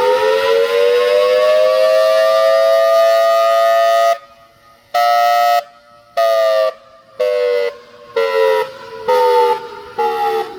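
Federal Signal Thunderbolt 1003 outdoor warning siren sounding a pulsed wail. It finishes winding up to full pitch and holds a steady two-note chord. About four seconds in, it breaks into short blasts roughly once a second, the pitch sagging slightly from blast to blast.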